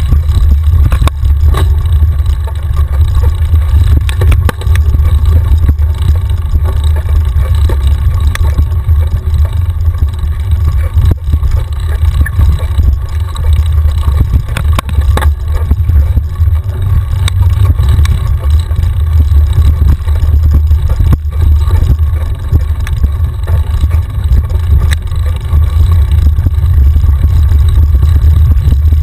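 Wind buffeting the microphone of a handlebar-mounted action camera on a mountain bike descending a rough dirt trail, a heavy steady rumble. Frequent sharp knocks and rattles come from the bike as it runs over the bumpy ground.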